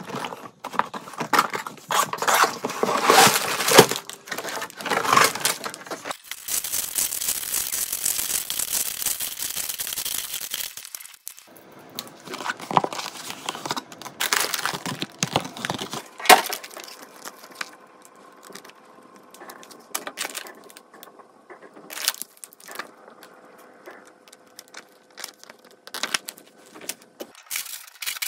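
Plastic packaging crinkling and tearing, with a longer rip-like hiss from about six to eleven seconds in, then scattered sharp clicks and rattles of small plastic Lego pieces being handled.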